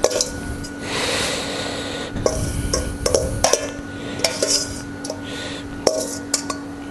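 Metal spoon clinking and scraping against a stainless steel bowl while marinated squid rings are spooned out onto a plate: a run of sharp clinks and knocks with a stretch of scraping. A faint steady hum sits underneath.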